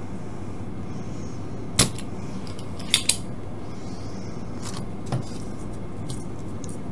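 Spring-loaded desoldering pump (solder sucker) clicking sharply as it fires and is re-cocked while solder is cleared from joints on a circuit board: one snap about two seconds in, a quick pair about a second later, then a few fainter clicks. A steady low hum runs underneath.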